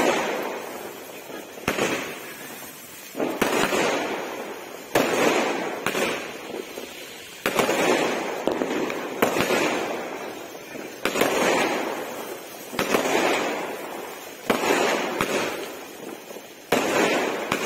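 Aerial fireworks bursting one after another, about every one and a half to two seconds. Each burst is a sharp bang followed by a rush of crackle that fades away.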